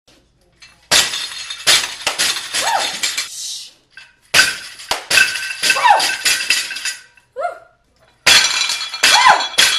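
Three loud, harsh, distorted yells, each a few seconds long with a falling pitch: a woman's exertion noises while lifting.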